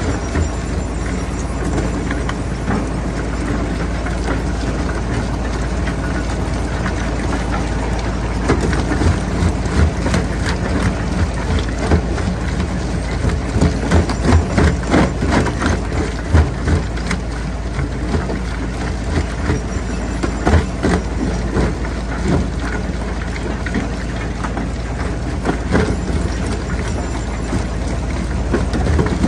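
Jaw crusher running steadily, with irregular sharp cracks and knocks of rocks breaking in its jaws, coming thickest from about a third of the way in to past the middle and again near the end.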